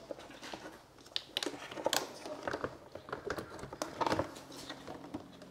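Irregular light clicks and plastic knocks as a turn-signal lamp housing is handled and pressed into the mounting clips on the back of a Tesla Model 3's plastic front bumper cover.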